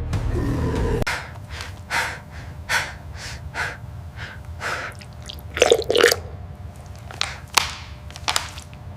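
Heavy, rapid breathing and gasping: short breaths come about every three-quarters of a second, with a louder, harder gasp about six seconds in.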